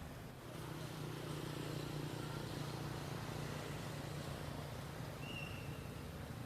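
A steady low motor hum, like a distant engine, with one brief high chirp about five seconds in.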